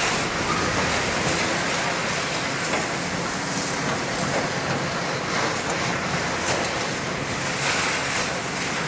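Heavy hydraulic excavators, a Caterpillar 352 among them, running their diesel engines in a steady rumble under a broad hiss, with faint knocks now and then.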